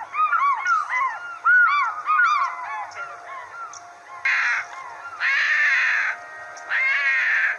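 Animal calls: a rapid jumble of short arched bird chirps for about three seconds, then three loud, harsh, drawn-out calls, the last two nearly a second long.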